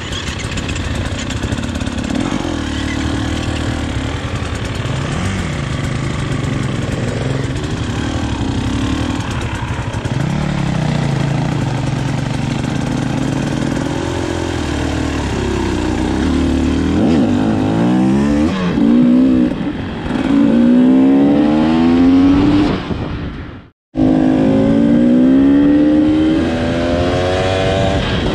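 Enduro motorcycle engines running off-road: a steady drone at first, then repeated revving with the pitch rising and falling in the second half. The sound drops out for an instant about three quarters of the way through.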